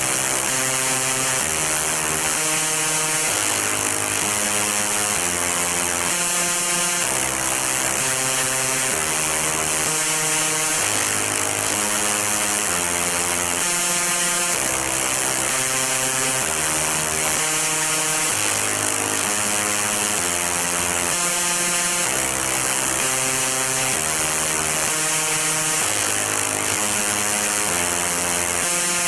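Punk rock music: heavily distorted guitar power chords over bass, changing chord about every second, with a constant wash of cymbal-like noise, loud and unbroken.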